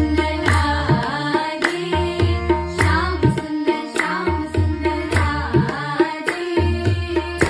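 Background music: an Indian-style song with tabla drums keeping a steady beat, their bass strokes bending in pitch, under a singing voice.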